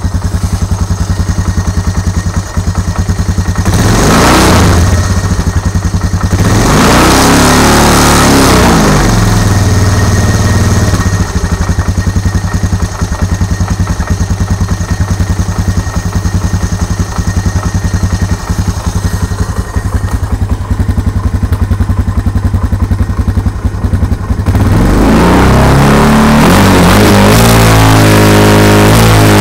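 2004 Honda Recon ES ATV's single-cylinder engine idling with a noticeable knock. It is revved briefly twice, about 4 and 7 seconds in, and then revved up and held higher, louder, near the end.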